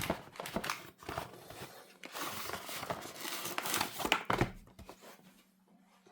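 Packaging being opened by hand, crinkling and rustling in two spells with a short lull about a second in, dying away near the end.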